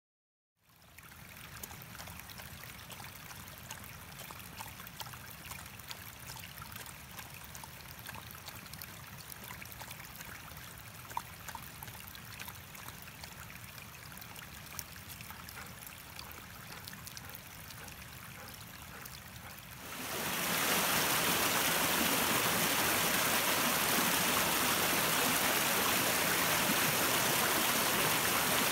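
Shallow mountain brook trickling over stones, with small irregular splashes. About two-thirds of the way through, a louder, steadier rush of water from a faster stretch of the stream takes over.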